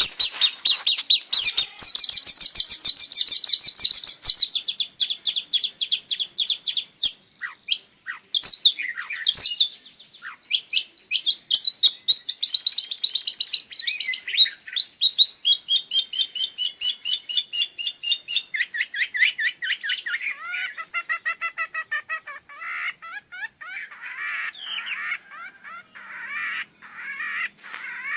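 Long-tailed shrike (cendet) singing in full song: a fast run of high, rapidly repeated notes for the first several seconds, then varied phrases, turning lower and quieter in the second half.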